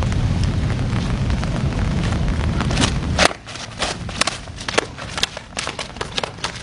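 Wind buffeting the microphone with a steady low rumble for about three seconds. Then come sharp, irregular clacks and smacks as the fighters' sticks strike each other, their gloves and their helmets, with one loud hit just as the rumble drops away.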